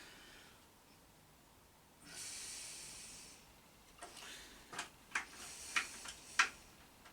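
A small one-handed bar clamp being squeezed tight with its trigger: a short hiss, then six or seven sharp clicks over about two and a half seconds, the last one loudest.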